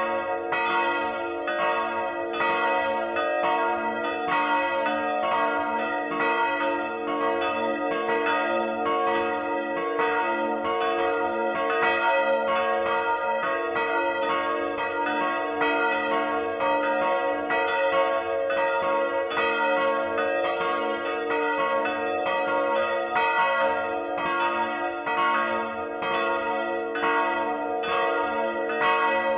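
Peal of large swinging church bells heard close up in the belfry, the 1759 Johann Peter Bach bell (strike note C♯) and 1952 Rincker bells (one on A). The clappers strike over and over in an uneven, overlapping rhythm, and each ringing tone hangs on under the next strike.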